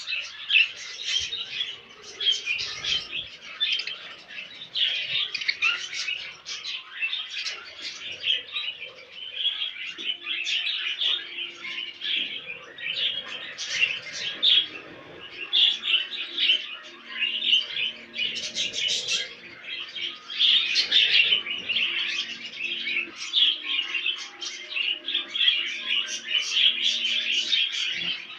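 Several pet budgerigars chirping and warbling continuously, a dense run of quick high chirps without pause.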